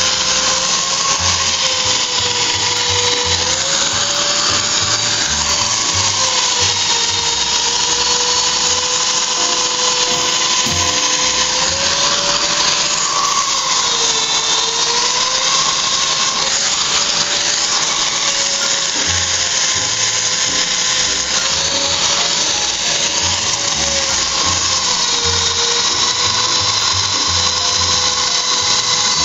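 Hand-held electric polisher spinning a diamond polishing pad on a terrazzo floor: a steady motor whine that wavers slowly up and down in pitch every few seconds, over the hiss of the pad on the stone.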